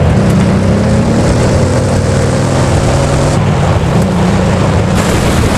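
Loud, steady engine-like running noise: a low hum with a hiss over it.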